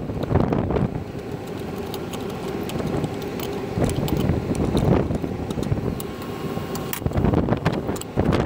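Wind rumbling on the microphone outdoors, with scattered short metallic clicks and clinks from gloved hands working nuts, threaded rods and a wrench on a fan motor's steel mounting plate.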